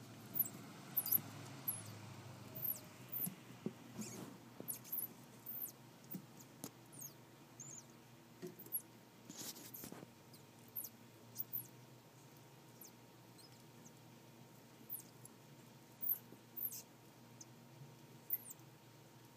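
Many short, high-pitched squeaks, each falling in pitch and scattered irregularly, from a pinkie mouse being bitten and eaten by a yearling box turtle.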